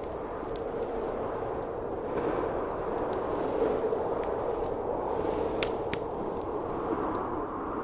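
Howling blizzard wind that swells and eases, with a wood fire crackling and popping over it; two sharper pops come about two-thirds of the way in.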